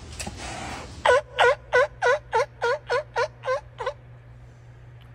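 A seal barking: a run of about nine short, loud barks, roughly three a second, starting about a second in.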